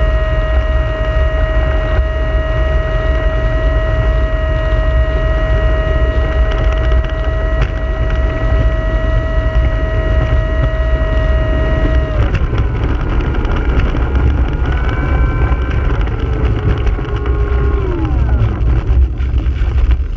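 Motor and propeller of an RC model T-28 airplane running steadily while it taxis on tarmac, heard from a camera on the airframe under a heavy low rumble. About twelve seconds in the pitch drops and wavers. Near the end it slides down further and stops abruptly.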